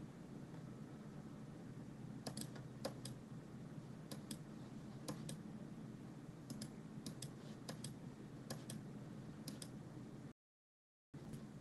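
Computer mouse clicking in quick press-and-release pairs, about nine times, while arrows are drawn on an online chess board, over a steady low hum. The audio cuts out completely for under a second near the end.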